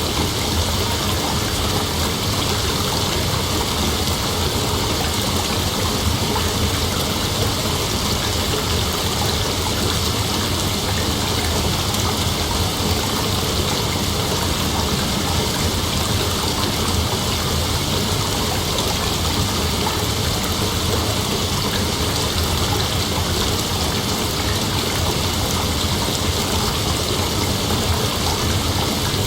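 Heavy rain falling steadily, a constant even hiss with no breaks or claps of thunder.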